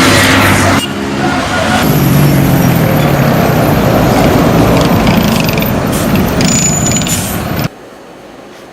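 Loud city street noise of heavy vehicles and machinery, in abrupt cuts from one scene to the next, dropping suddenly to a much quieter background near the end.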